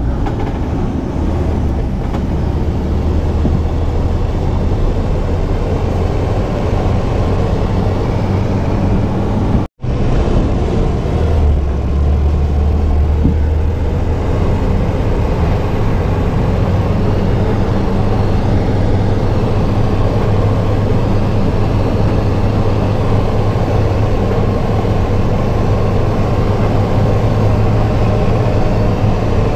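Vehicle engine and road noise heard from inside the cab while driving, a steady low drone whose pitch shifts a few times with speed. The sound drops out for a split second about ten seconds in.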